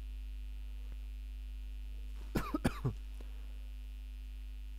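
Steady low electrical hum, with a short cough a little past halfway through.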